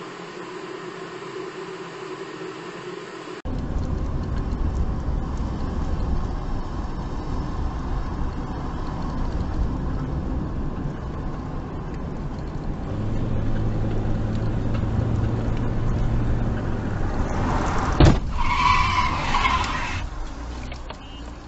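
Car cabin noise as heard from a dashcam: a steady hum that cuts off abruptly a few seconds in, then the camera car's low engine and road rumble. Near the end comes one sudden loud bang as another car strikes the side of the camera car, followed by a second or so of harsh noise.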